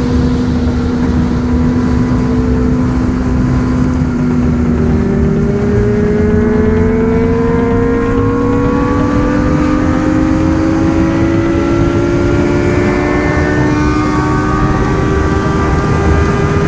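Car engine running steadily under load, its pitch holding and then rising slowly and evenly as the car gains speed, over a continuous low rumble.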